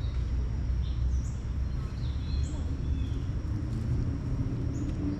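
Outdoor woodland ambience: a steady low rumble with scattered short bird chirps above it.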